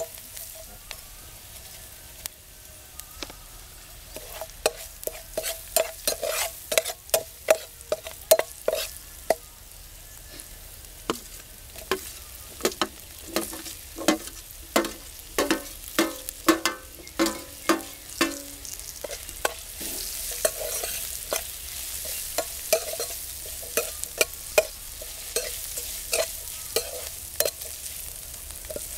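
Perforated metal spatula scraping and knocking against a black iron frying pan while chillies, curry leaves and then diced potatoes are stirred in hot oil. Each stroke is a sharp click with a short ring from the pan. A hissing sizzle grows louder from about twenty seconds in, once the potatoes are frying.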